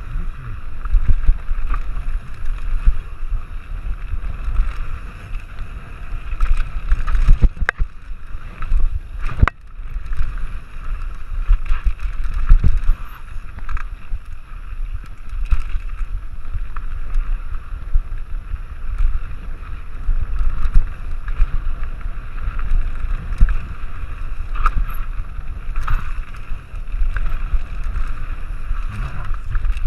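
Wind buffeting the microphone of a mountain bike riding fast down a dirt trail, over the rumble of tyres on dirt and the bike rattling over bumps, with a few sharp knocks.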